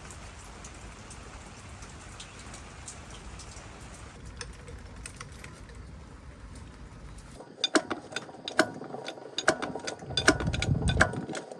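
Steady low background noise, then from about seven seconds in a quick, irregular run of sharp clicks and clinks, some of them briefly ringing.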